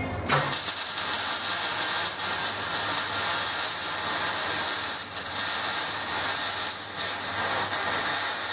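Electric arc welding on a steel exhaust pipe: a steady hiss that starts suddenly just after the start, with a few very brief breaks in the arc.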